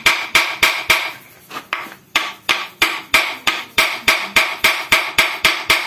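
Hammer blows on metal in a steady run, about three a second, each blow leaving the metal ringing. The strikes falter briefly about a second in, then resume at the same pace.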